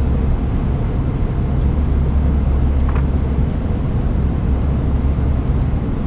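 Steady low cabin drone of a four-engine Airbus A340-300 in flight, engine and airflow noise. A magazine page turns with a faint rustle about three seconds in.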